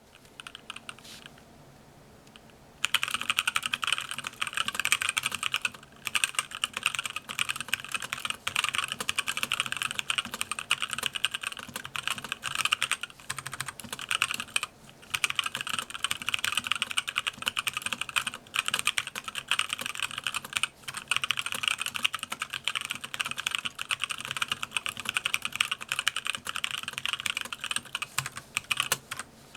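Mechanical keyboard with 65g tactile Zealio switches and DSA PBT keycaps in an aluminium case, typed on fast: a dense stream of key clacks with a few short pauses. The typing starts about three seconds in.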